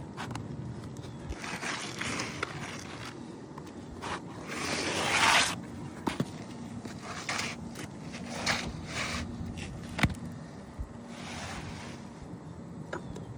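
A replacement asphalt shingle being slid into place under the surrounding shingles, scraping in a series of short rasps, the loudest about five seconds in. A few sharp clicks or knocks come between them.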